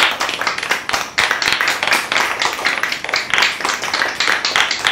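A group of children clapping their hands, many quick claps overlapping one another.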